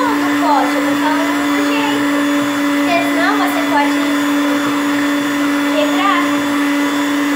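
Electric hand mixer running at a steady speed, its beaters whipping chantilly (whipped-cream powder beaten with cold milk) in a bowl. The motor gives a steady hum at one pitch.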